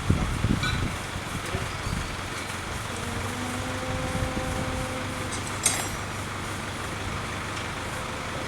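Truck-mounted crane's engine running steadily at idle. A faint steady whine comes in for a couple of seconds about three seconds in, and there is one sharp metallic clink near six seconds.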